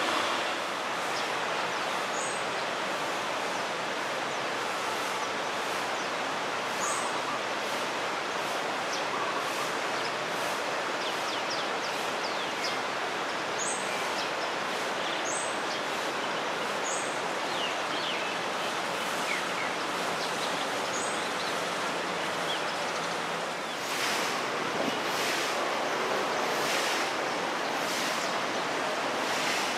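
Steady outdoor hiss of ambient noise with scattered faint, high bird chirps; from about 24 seconds in, gusty surges like wind on the microphone.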